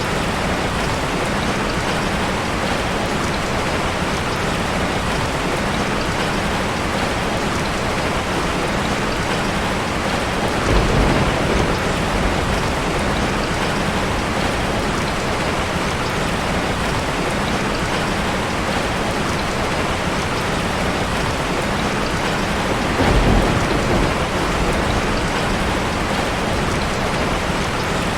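Steady heavy rain falling, an even hiss, with two short low rumbles of thunder, about a third of the way in and again near the end.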